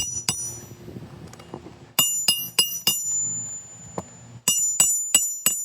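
Hammer striking a steel roof snake, the shingle nail-removal tool, to pull roofing nails from under the shingles. The metal-on-metal blows come in quick runs of about four, roughly three a second, each with a short bright ring.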